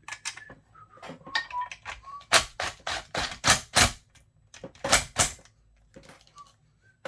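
A run of sharp metallic clicks and clacks from hand tools and parts being handled during chainsaw reassembly, loudest in a quick cluster around the middle and a pair of louder knocks shortly after.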